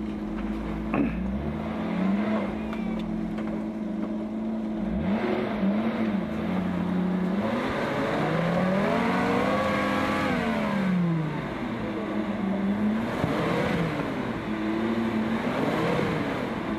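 Off-road vehicle's engine working at steady low revs, then revved up and back down in a long swell and several shorter ones as it claws, tilted, through a deep rut of mud and snow.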